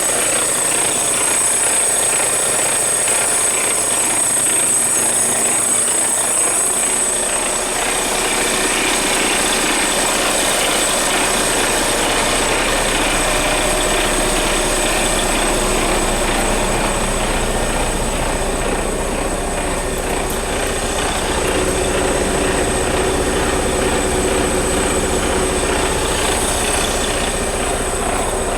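Mercedes-Benz Arocs 3243 concrete mixer truck's inline-six diesel engine running steadily at idle, with a steady high-pitched whine over it.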